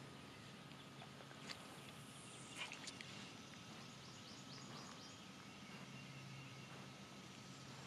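Near silence: faint outdoor ambience with a low steady hum, a few soft clicks in the first three seconds, and faint high bird chirps around the middle.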